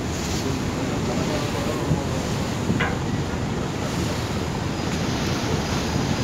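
Steady wind rushing on the microphone over river water wash, with a steady low rumble underneath.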